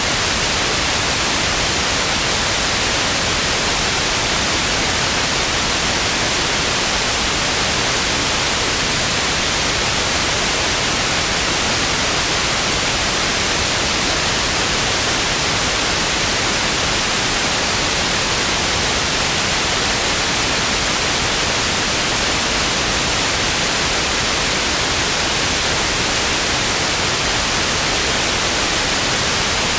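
Television static: a steady, unchanging hiss of white noise, strongest in the high range, with no tones or breaks.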